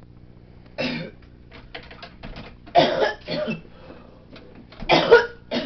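A person coughing several times: once, then a pair of coughs about three seconds in, then two more near the end, with a few light clicks in between and a faint steady hum underneath.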